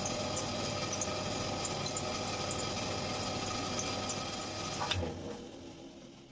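Makita LB1200F band saw running with no load, a steady hum from its 900 W motor and spinning blade, run to check the blade for vibration after the pulley tracking adjustment. About five seconds in there is a click and the saw runs down and fades.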